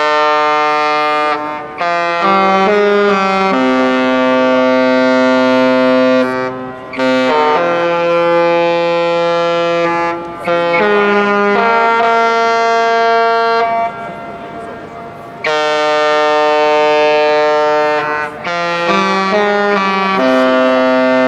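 The Majestic Princess cruise ship's musical typhon horn playing a tune: loud, long held notes with quicker short notes between them, and brief breaks between phrases.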